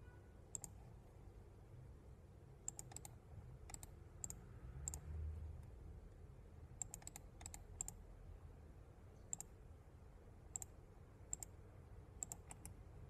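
Computer mouse button clicking at irregular intervals, single clicks and quick pairs or triples, over a faint low hum.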